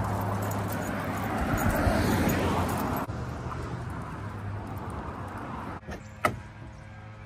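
Road noise from passing car traffic, loud and steady, dropping abruptly to a quieter outdoor background about three seconds in. A single sharp click about six seconds in.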